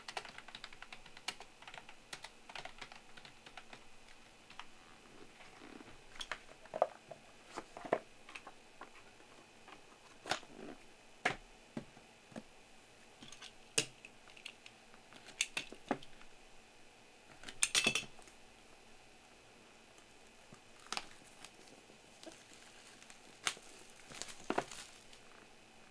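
Scattered clicks and taps with quiet stretches between them: typing on a computer keyboard, and cardboard trading-card boxes being handled, stacked and set down on a table. A brief clatter about two-thirds of the way through is the loudest moment.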